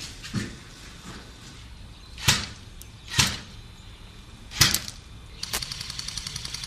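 Airsoft guns firing: sharp single shots at irregular intervals, two in quick succession past the middle, then a rapid full-auto rattle of about ten shots a second near the end.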